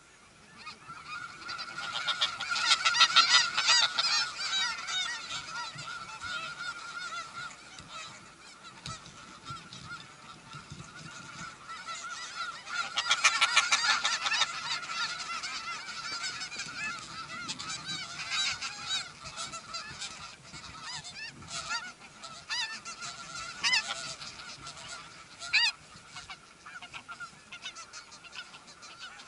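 Snow geese honking, a chorus of many overlapping calls from the nesting colony. It swells loudest about three seconds in and again about thirteen seconds in, with a couple of sharp, louder single calls near the end.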